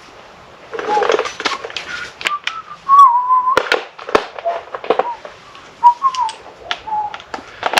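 A person whistling a few wavering notes of a tune, over sharp clicks and knocks of handling and rustling.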